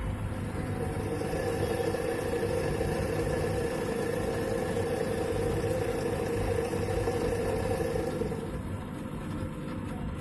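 IFB Elina washing machine running its spin cycle: a steady mechanical hum with a droning tone that eases off about eight and a half seconds in. The owner presents this noise as a motor problem.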